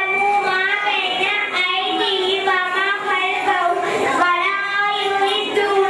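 Two young girls singing a song together into microphones, in held, wavering notes.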